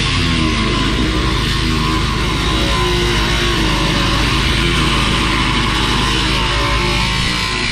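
Loud heavy-metal style music with distorted electric guitar, a steady low drone under stepping guitar notes.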